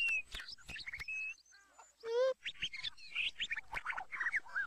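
Short, high bird-like chirps and squeaks from a cartoon soundtrack, played in reverse, with a brief pause about a second and a half in.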